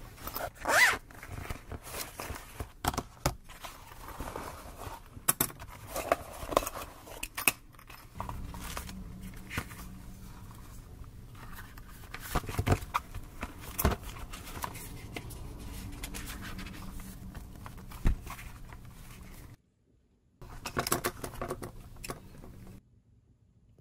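A spiral notebook and its felt cover being handled: paper rustling with many sharp clicks and taps, thickest in the first eight seconds. The sound drops out briefly twice near the end.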